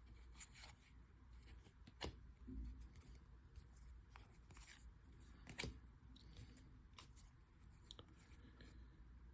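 Near silence, with faint, scattered clicks and light rustling of baseball trading cards being handled and sorted, the most distinct about two seconds in and again past the middle.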